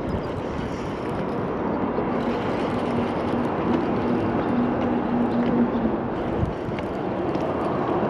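Steady wind and water noise with a motor humming at a steady pitch; the hum comes in about two seconds in and fades out near six seconds.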